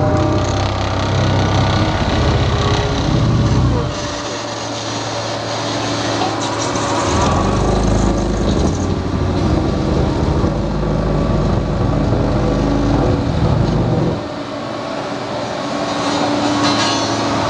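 The diesel engine of a Bomag BW 219 DH-3 single-drum road roller running. Its deep low rumble drops away about four seconds in, returns a few seconds later, and drops away again near the end before coming back.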